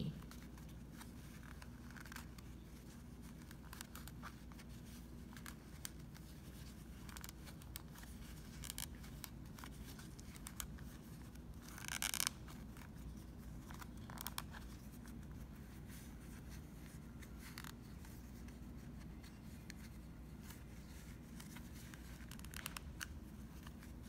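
Faint handling noise of yarn warp strands being slid along a plastic CD by fingers: scattered small scrapes and clicks, with one louder brief scrape about halfway through, over a low steady room hum.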